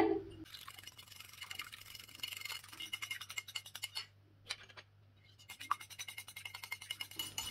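Small wire whisk beating a runny egg-white, aloe vera gel and oil mixture in a small bowl: fast, light scratchy clicking. The strokes stop for about a second and a half a little past the middle, then start again.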